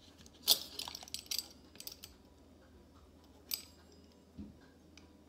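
Sharp clicks and light clinks of a cutting tool set against a plastic cutting mat as a fondant strip is cut to length. The loudest comes about half a second in, with a cluster in the first two seconds and two more single clicks later.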